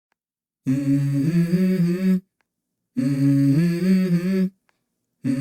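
Background music: a hummed vocal melody, the same short stepped phrase repeated with short pauses between.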